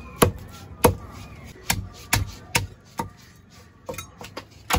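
Large knife chopping a garfish into steaks on a wooden stump block: about nine sharp chops at uneven spacing, the last few lighter.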